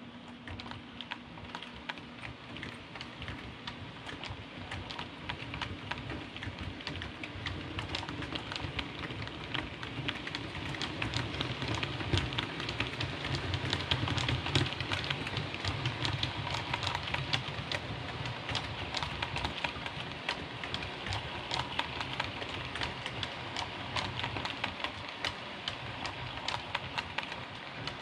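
Hornby OO gauge model APT train running past on the track: a rapid, continuous patter of small metal wheels clicking over rail joints, over a low motor hum that grows loudest around the middle as the power car goes by, then eases off.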